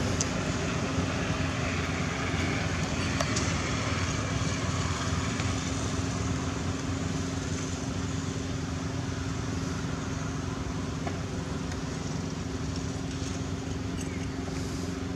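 Steady low mechanical hum and rumble, like a motor running, with a constant low tone and a few faint clicks.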